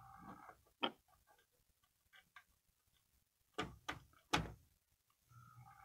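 A few faint clicks and taps as a wooden skewer works at the couplers between HO scale model freight cars to uncouple them: one about a second in, then three close together around four seconds in.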